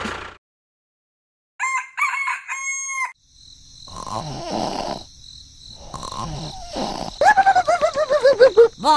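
Chickens calling: a rooster crows about two seconds in, and near the end comes a quick run of calls falling in pitch, over a steady high insect trill.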